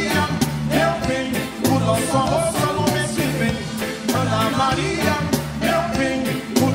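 Live reggae band playing a passage with no lead vocal: a repeating bass line under drums and other instruments.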